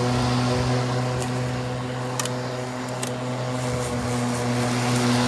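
Homelite corded electric lawnmower running steadily while being pushed through grass, its motor giving a constant even hum. A couple of short clicks come about two and three seconds in.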